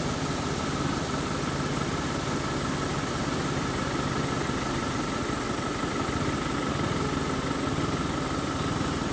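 Vehicle engine idling steadily: an even, unchanging hum with a faint steady whine above it.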